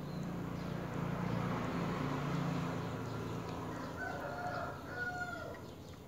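A rooster crowing: one long drawn-out crow for the first three seconds or so, then a few thinner, higher calls.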